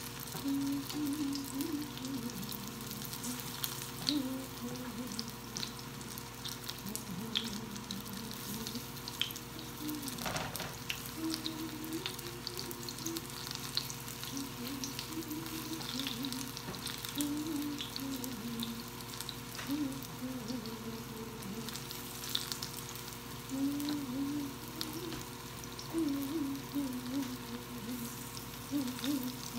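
Dakor na gota fritters shallow-frying in oil in a nonstick skillet: a steady sizzle with small crackling pops, and wooden tongs scraping and turning them now and then, with a knock about ten seconds in. A low wavering tone comes and goes underneath.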